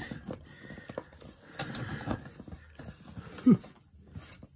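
Plastic screw-on end cap of a 4-inch pipe storage tube being fumbled and fitted by hand: scattered light knocks, clicks and rubbing of plastic on plastic, with one brief, louder pitched sound about three and a half seconds in.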